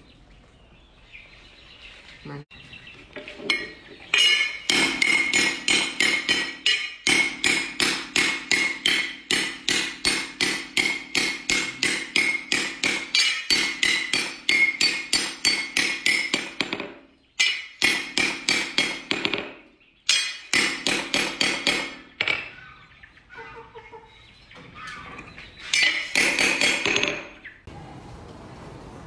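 Hand hammer forging a steel cleaver blade on a steel anvil: rapid ringing strikes, about two or three a second, in several runs broken by short pauses.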